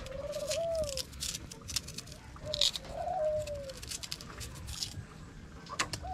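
A dove cooing: two low coos about two and a half seconds apart, each rising slightly then sliding down in pitch.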